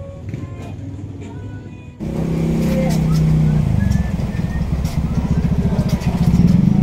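A motor vehicle engine running close by, in street traffic. It turns suddenly loud about two seconds in and stays with a low, rapid pulsing.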